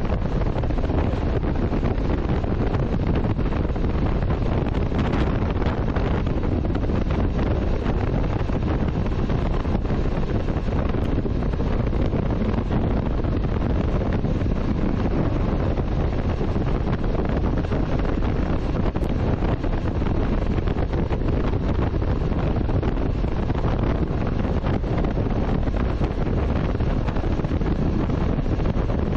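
Steady wind rush buffeting the microphone of a motorcycle riding at road speed, heaviest in the low end and unbroken throughout.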